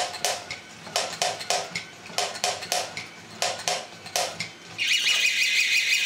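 3D-printed walking robots' plastic feet clacking on a tabletop in quick, uneven runs of clicks. About five seconds in, a loud, warbling electronic alarm tone starts and holds steady.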